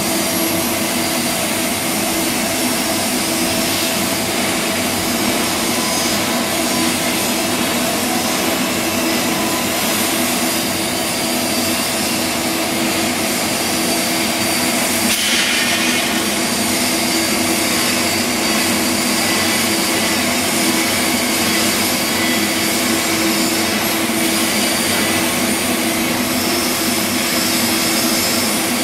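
TIG welding arc on a pipe joint: a steady hiss over an even hum, briefly brighter about halfway through.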